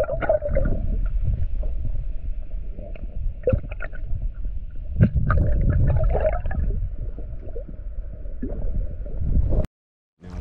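Muffled water gurgling and sloshing with a low rumble, heard dull and boomy as if from under the water, with a few brief splashes. It cuts off abruptly near the end.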